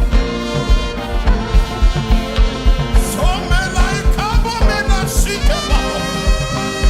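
Upbeat music with a steady drum beat and horns; a bending melody line comes in about three seconds in.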